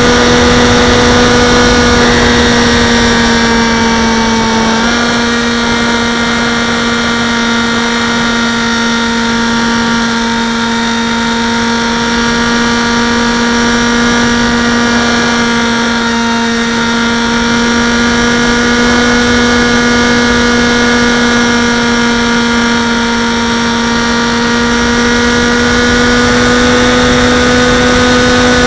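Brushless electric motor and propeller of a Dynam Hawk Sky RC plane, heard from a camera mounted on the plane in flight: a steady whine with a rush of air. The pitch steps up slightly about five seconds in, then holds.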